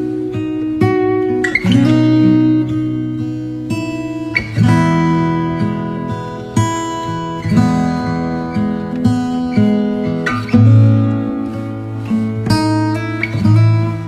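Background music: acoustic guitar strumming and picking chords, a new chord struck every second or two.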